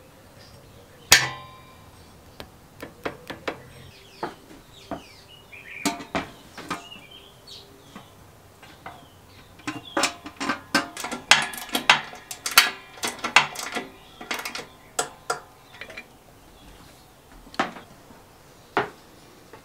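Metal clinks, taps and rattles of painted steel parts on a restored Suffolk Super Punch cylinder mower being handled and fitted. One sharp ringing clink comes about a second in. A dense run of clattering comes around the middle as the sheet-steel cover is set onto the frame over the roller.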